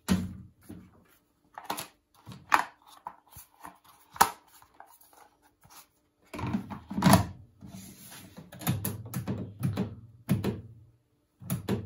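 Plastic clicks and knocks from a washing machine's detergent drawer and its removable insert being handled and pushed back in: a few separate sharp clicks at first, then longer bouts of rattling and knocking past the middle.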